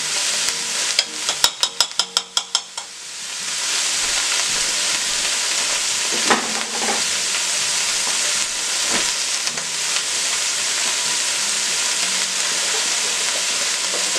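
Chopped onions, green peppers, celery and scallions frying in a stainless steel pot, a steady sizzle. About a second in comes a quick run of about ten sharp taps, and the sizzle dips briefly before it comes back.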